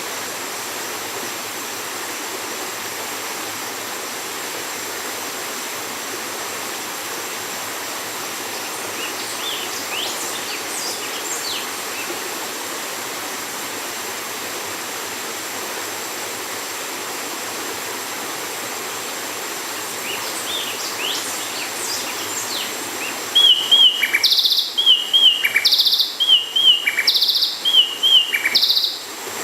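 Bay wren singing over a steady rushing background noise: a few faint song phrases about a third of the way in and again about two-thirds in. Over the last six seconds come about five loud phrases of quick looping whistled notes in rapid succession.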